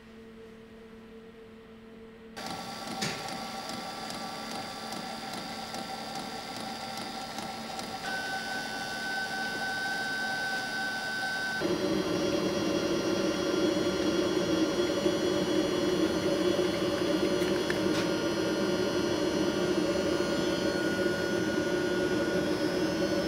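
Eberspächer D5SC Hydronic II diesel parking heater starting up. Its steady running sound cuts in about two seconds in, with a thin high tone for a few seconds. Around twelve seconds in it steps up louder and deeper and runs on, not actually that loud.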